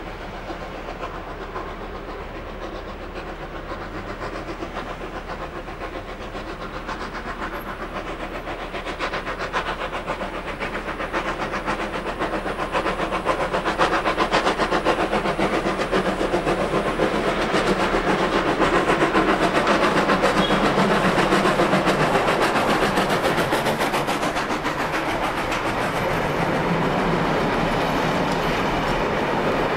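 NSW C30 class steam tank locomotive 3112 working a passenger train. Its exhaust beats grow steadily louder as it approaches, and the carriages then roll by near the end.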